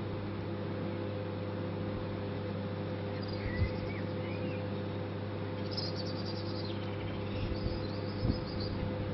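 Microwave oven running with a steady hum while heating a piece of obsidian, with faint high chirps and two short thuds, about three and a half and eight seconds in.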